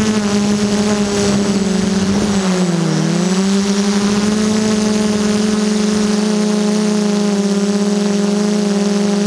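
F330 quadcopter's brushless motors and propellers humming steadily, heard from the camera mounted on the drone itself. The pitch sags briefly about three seconds in as the throttle eases, then climbs back and holds.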